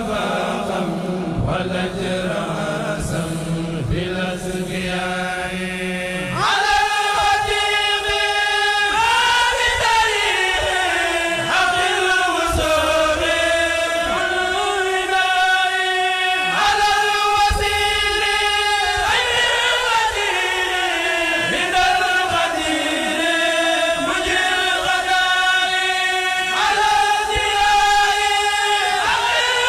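A kourel, a group of male chanters, chanting a Mouride religious poem (xassida) in unison with long, wavering held notes. A low held note carries the first few seconds, then the chant grows louder and fuller about six seconds in.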